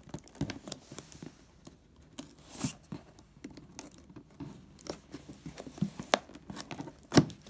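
Cardboard laptop box being torn open by hand: fingers scratching and tearing at the packing tape along the box's edge seam, with scattered short rips and taps, a longer rasp about two and a half seconds in and a sharp snap near the end.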